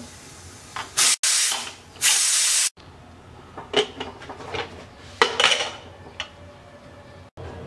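Steam hissing loudly out of a pressure cooker in two rushes, each cut off abruptly, as the leftover pressure is let out after the whistles. Then a run of metal clinks and knocks as the cooker's lid is twisted loose and lifted off.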